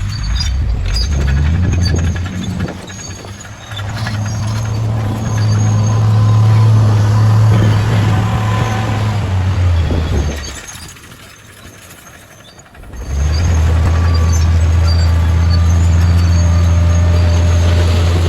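Heavy diesel engine of a bulldozer running steadily with a deep drone. About ten seconds in it falls away for a couple of seconds, then comes back just as strong.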